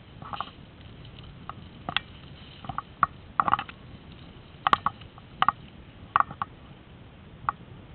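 Footsteps and rustling through tall grass and reeds: irregular short crunches and swishes, about ten of them, coming every half second to a second.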